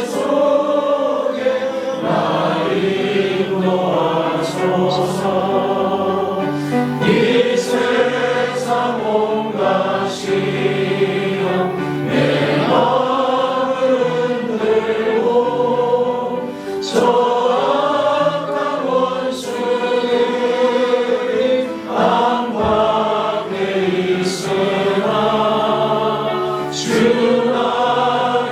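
Church congregation singing a hymn together, many voices in Korean.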